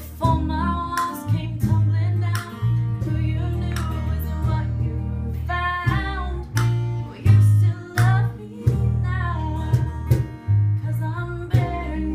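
A woman singing a slow country song, accompanied by a strummed acoustic guitar.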